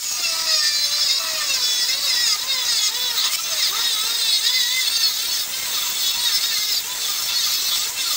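Angle grinder with a Graff Black Diamond cutting disc cutting a notch into square steel tubing: a steady, high-pitched cutting whine that wavers in pitch as the disc bites into the metal.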